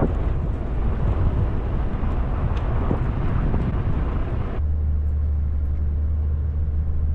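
Truck driving on snowy roads: tyre and road noise over a low engine rumble. About four and a half seconds in, the hiss cuts off suddenly, leaving only a steady low drone.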